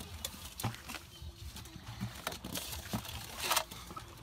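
Wet feathers being plucked by hand from a chicken over a metal bowl: scattered soft rips, ticks and patters, with a louder short rustle about three and a half seconds in.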